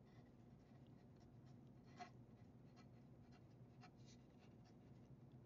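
Faint strokes and taps of a pen writing on a sheet of paper, with one sharper tap about two seconds in, over a faint low hum.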